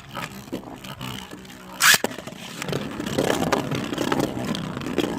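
A Beyblade launcher is ripped once, sharply, about two seconds in, then the tops spin and clash in the stadium with a rough, rising rattle of scraping and small hits.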